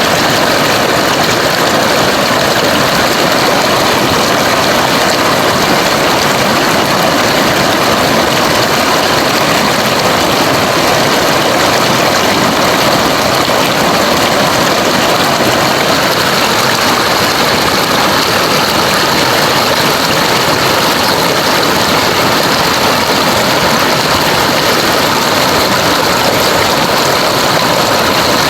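Rushing river water: a loud, steady flow with no breaks or changes.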